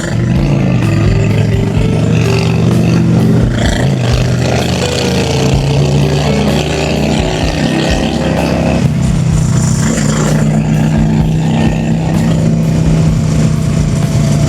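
Honda Shadow V-twin motorcycle engine running under way. Its pitch falls and climbs again in the first few seconds and once more around four seconds in, as the revs change, then it holds a steady drone for the rest.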